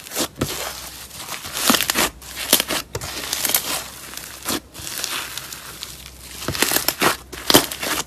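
Thick, textured slime squeezed and stretched by hand, crackling and popping in irregular bursts. The loudest pops come near the end.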